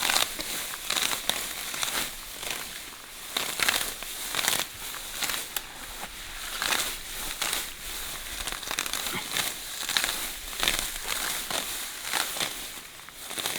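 Irregular rustling and crackling of leaves and stems being handled, many quick sharp crackles following one another.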